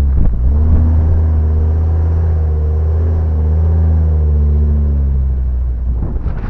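Ford Econoline van's engine running under load while the van drives through soft sand, a deep steady hum whose pitch rises and falls a little, easing off near the end.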